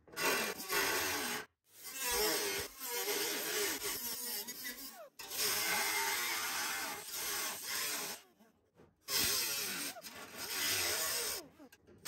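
Pneumatic die grinder with a small abrasive disc grinding into the truck cab's sheet steel, run in several bursts of a few seconds with brief stops between them.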